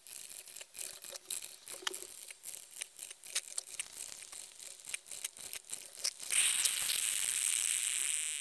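Electric drip coffee maker brewing: rapid irregular clicks and sputtering pops as it heats and pushes water through. About six seconds in, a louder steady hiss takes over.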